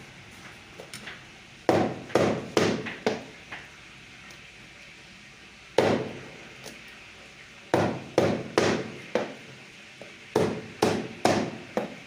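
Cleaver chopping through chicken on a chopping block: sharp strikes about two a second, in a run of five, a single blow, then two runs of four.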